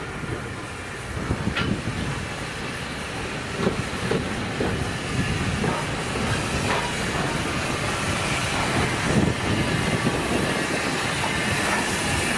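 NER T2 (LNER Q6) 0-8-0 steam locomotive No. 2238 running slowly along the platform, growing steadily louder as it approaches. It hisses steam, with irregular clanks and rail clicks from the wheels.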